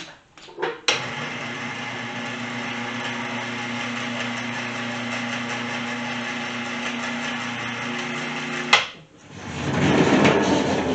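A small electric motor runs steadily for about eight seconds, starting suddenly and stopping with a click. A short swell of rushing noise follows near the end.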